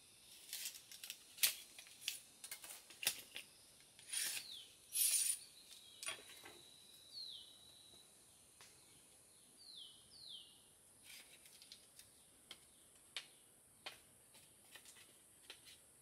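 A series of sharp clicks and short scraping rustles, busiest in the first half, over a steady high insect hiss; a few short falling bird chirps come in near the middle.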